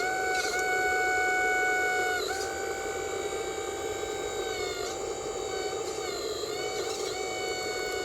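Steady whine of a radio-controlled model's electric motor running, with a rushing noise under it. Its pitch sags briefly three times, as if the motor takes load.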